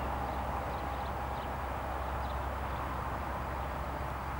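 Cessna 172R Skyhawk's four-cylinder Lycoming engine and propeller, a steady distant drone as the plane climbs away after takeoff.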